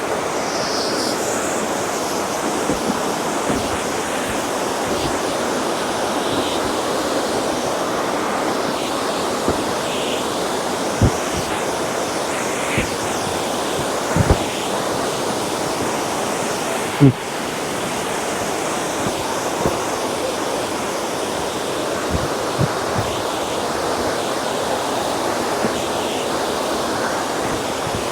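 Steady rushing of a waterfall and its creek close by, with a few soft low thumps scattered through it and one sharp click about 17 seconds in.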